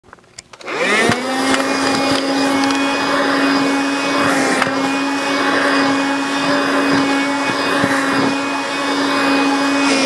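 Saxx Mach cordless handheld vacuum cleaner: a few clicks, then its motor spins up in under half a second, rising in pitch, and settles into a steady hum with a high whine while it is run over bedding.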